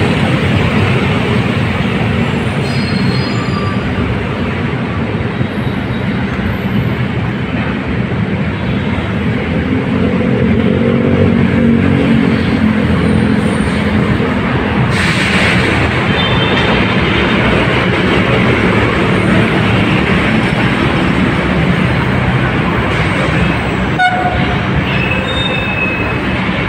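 Philippine National Railways maintenance train of track motor cars and flatcars approaching, its engines and wheels making steady train noise, with the horn sounding for a few seconds about ten seconds in.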